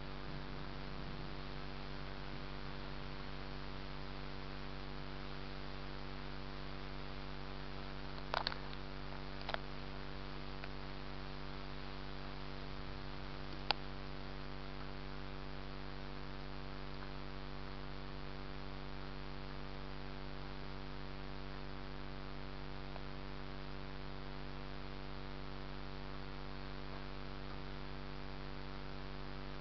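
Steady electrical hum made of several constant tones over a faint hiss, with a few short sharp clicks about eight to fourteen seconds in. No thunder is heard.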